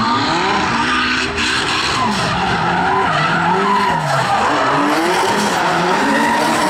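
Drift cars running a tandem battle: engines revving up and down under load while the tyres squeal and skid.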